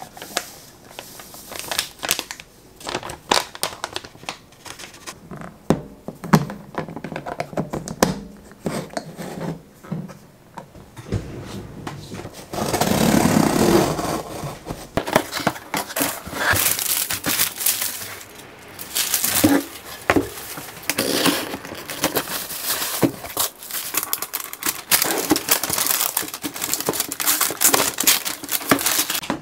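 Crinkling and rustling of a plastic bag and paper packaging, with small knocks of items set on the counter. About thirteen seconds in, scissors slit the packing tape on a cardboard box in one louder, longer stretch.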